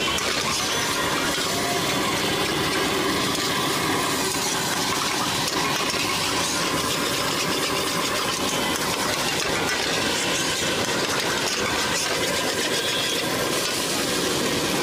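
Steel spatula scraping and clattering against a wok as noodles are stir-fried, with the steady rumble of street traffic behind.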